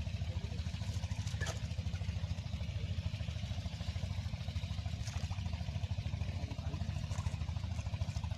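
A small engine running steadily at an even pace, with a fast low pulsing, and a few faint clicks over it.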